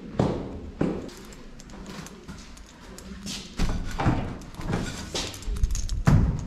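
Footsteps coming down stairs and along a hard hallway floor, then knocks and a heavy thud as a lift's outer swing door is pulled open near the end.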